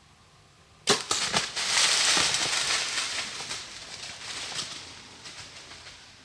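A bow shot about a second in: one sharp crack, then a whitetail buck crashing off through dry leaves and brush, a loud crackling rush that fades over the next few seconds.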